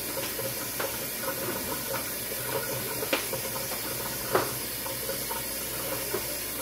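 Kitchen faucet running steadily into a plastic dish tub in a steel sink, with a few light knocks. The loudest knock comes about four seconds in.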